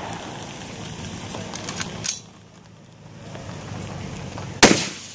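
Competition rifle shots fired from behind a barricade: a fainter crack about two seconds in, then a loud report near the end with a short echoing tail.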